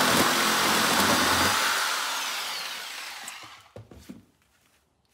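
Black+Decker 4.5-amp corded jigsaw running, cutting an interlocking plastic floor tile; the loud saw noise trails away from about a second and a half in, followed by a couple of light knocks, then quiet.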